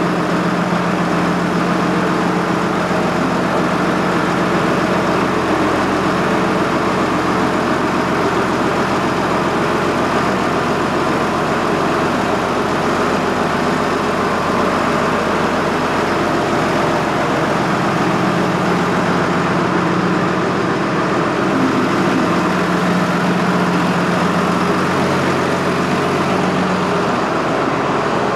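John Deere 6068 inline-six diesel running steadily at a low, even speed. The crew suspects it has at least one dead cylinder.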